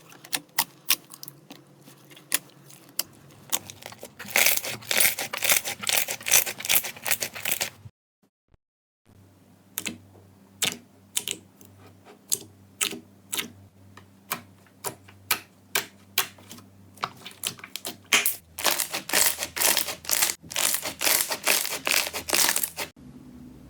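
Slime being worked by hand, making rapid sharp clicks and crackles that come thickest in two stretches, with a brief silence about eight seconds in.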